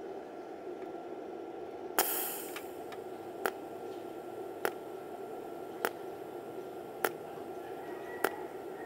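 TIG welder in cold-TIG mode firing automatic short arc pulses: six sharp zaps about a second and a quarter apart. The first is the loudest, with a brief hiss after it, over a steady hum.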